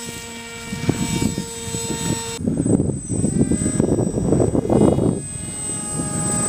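Brushless electric motor and propeller of a homemade foam delta-wing RC plane whining in flight, with gusty wind noise on the microphone. The sound changes abruptly about two seconds in, after which the whine drifts slowly in pitch.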